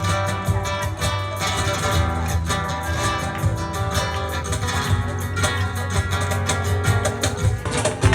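Music led by rapidly strummed acoustic guitar in a flamenco-like style. The sound changes abruptly just before the end.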